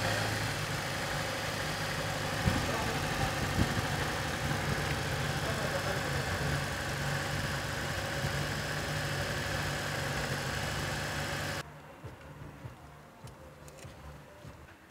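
Fiat Palio petrol engine idling steadily while water is flushed through its cooling system. The engine sound cuts off abruptly about three-quarters of the way through, leaving only faint clicks and handling noises.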